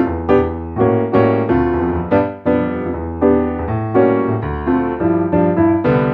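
Digital piano playing a sampled grand-piano sound: a melody over held bass notes and chords, with a new note or chord struck about twice a second.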